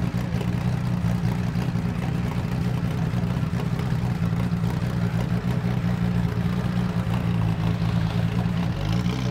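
Porsche 911 GT1 Evo's twin-turbo flat-six racing engine idling steadily and loudly, with the revs rising briefly near the end.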